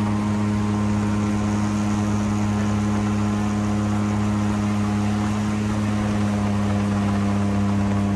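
Airboat's engine and air propeller running steadily at constant speed, a loud, even drone with a fixed low pitch.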